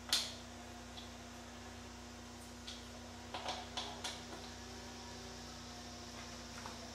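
Sharp clicks and light taps of small metal fittings being handled and adjusted by hand on a pantograph's ball pivot assembly: one louder click just at the start, a cluster of fainter ones around the middle, and one more near the end, over a steady low hum.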